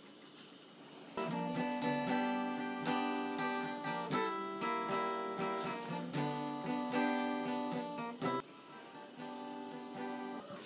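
Acoustic guitar playing the closing bars of an instrumental tune. It comes in about a second in and breaks off briefly near the end.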